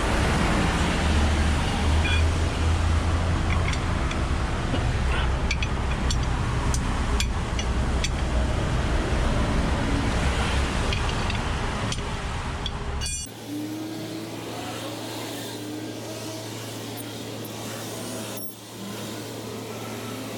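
A heavy vehicle's engine running loudly, with scattered metallic clinks. About thirteen seconds in, the sound cuts abruptly to a quieter steady low hum.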